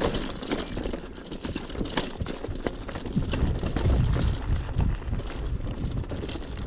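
Mountain bike rattling and knocking over a rocky, bumpy trail, with many short sharp clatters and a low rumble that grows louder about four seconds in.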